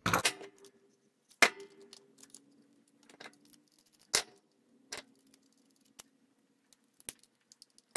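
Small screwdriver working the screw terminal on a timer relay board while a wire is fastened: a handful of sharp metal-on-plastic clicks spaced about a second apart, three of them louder than the rest.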